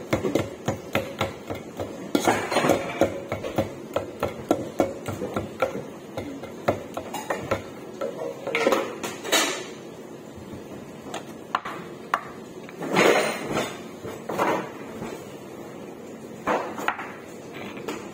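A muddler pounding in a stainless steel pot makes quick repeated metallic knocks for the first several seconds. After that come scattered, louder clunks and knocks.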